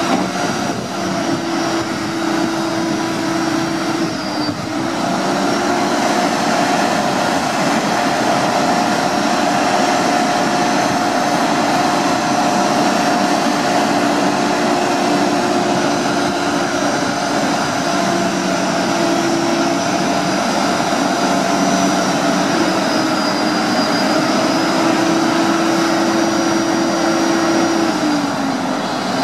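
Lodal automated side-loader garbage truck idling with its hydraulics running: a loud, steady engine-and-pump drone with a held whine whose pitch shifts a few seconds in and again near the end.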